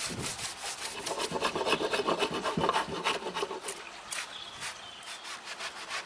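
Stiff-bristled hand brush scrubbed in quick back-and-forth strokes across the weathered, rough surface of an old timber board, several strokes a second. The strokes go lighter about four seconds in.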